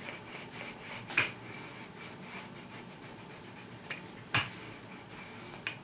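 Wooden rolling pin rolling out pie dough on a floured counter: soft rubbing strokes, with two sharp knocks, about a second in and, louder, about four and a half seconds in, and a couple of lighter clicks.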